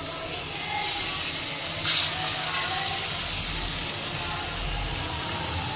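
Pakoras deep-frying in hot oil in a wok: a steady sizzle that gets louder and brighter about two seconds in, as more battered pieces go into the oil.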